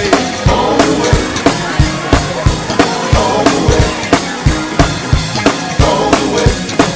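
Gospel song in an instrumental passage without singing: a steady drum-kit beat with bass drum and snare under the band.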